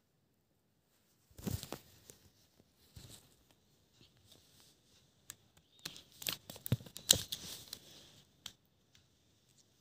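Plastic clicking and rattling of a triangular twisty puzzle (a pyraminx) being handled and turned, in irregular clusters of sharp clicks: a short burst about a second and a half in, and a denser run from about six to eight seconds in.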